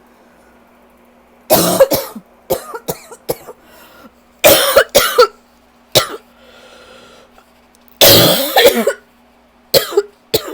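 A person coughing in repeated rough fits from an allergy cough: three long harsh coughs, about 1.5, 4.5 and 8 seconds in, with shorter hacking coughs between and near the end.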